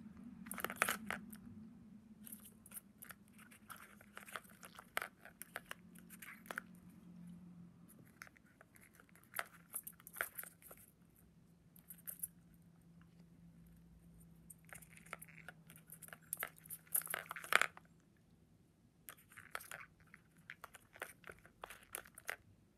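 Faint clusters of small beak clicks and scratchy rustles from a budgerigar nibbling at its toes and feathers while preening, loudest about a second in and again around seventeen seconds. A faint steady low hum runs underneath and fades out near the end.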